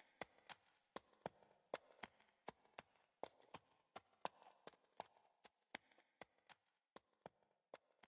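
Faint, light tapping footsteps of a sheep's hooves, a sound effect in pairs of quick steps about three pairs every two seconds, growing fainter toward the end.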